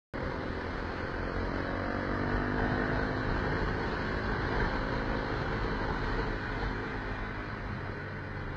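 Motorcycle engine running steadily at road speed, heard under wind and road noise.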